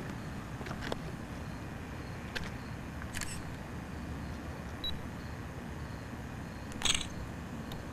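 Handling noise from a handheld camera carried on foot: a steady low rumble with a few scattered clicks and scuffs, the loudest about seven seconds in.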